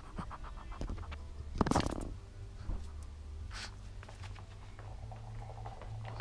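A dog's paws and claws pattering and scratching on a hard floor and rug as it plays close by, with a louder close rustle about two seconds in, over a low steady hum.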